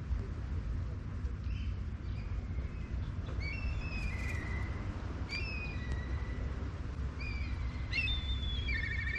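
A songbird calling: short falling whistled notes, repeated every second or two from about three seconds in, ending in a quick warbling phrase. There is a steady low rumble underneath.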